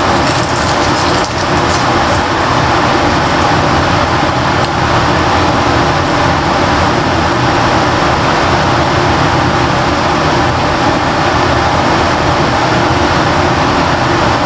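A loud, steady rushing noise with no pitch or rhythm, with a few faint ticks about a second in.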